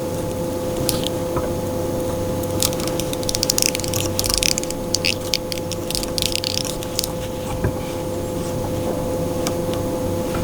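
Hands working living-rubber skirt strands and a clip on a jig: clusters of soft rustling and crackling, busiest between about 2.5 and 7 seconds, over a steady hum.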